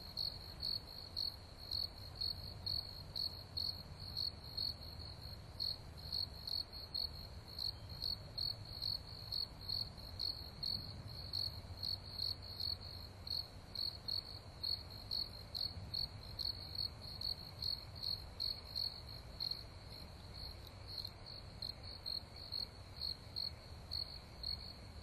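Crickets chirping at night: a steady, even train of high-pitched chirps, about two a second.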